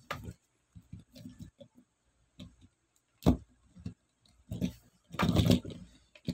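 Scattered clicks and knocks from a Hot Wheels V8 Bomber toy monster truck being handled and set down on a tabletop, with a sharp knock a little past three seconds in and a louder, rougher burst of about half a second near the end.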